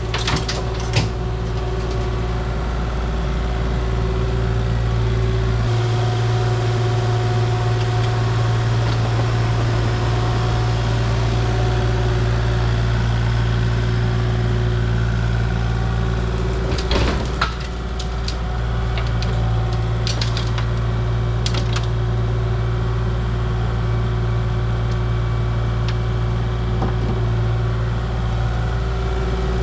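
Heavy equipment engine running steadily while loading dirt into a dump truck, with a few sharp knocks about halfway through.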